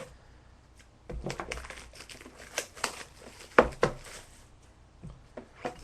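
Plastic wrapping crinkling and tearing as a sealed pack of trading cards is opened, with one sharp click about three and a half seconds in.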